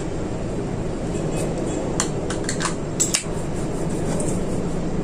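A few light clicks and taps from a glass perfume bottle and its cap being handled, bunched about two to three seconds in, over a steady background noise.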